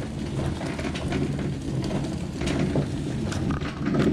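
Hand-turned traditional rice husking mill grinding paddy: a steady rumbling grind with a dense crackle of rice grains as the husks are broken off.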